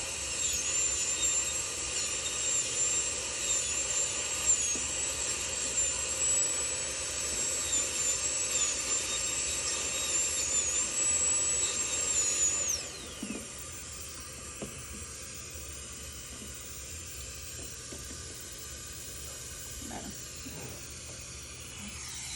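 High-speed dental handpiece running with a high, slightly wavering whine while cutting a cavity preparation. About thirteen seconds in it shuts off and spins down with a brief falling whine, leaving a fainter steady hiss.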